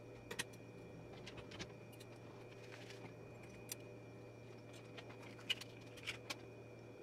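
Scattered light clicks and small metal taps from hands handling parts of a Singer Simple sewing machine with its covers off, over a steady low hum that cuts off near the end.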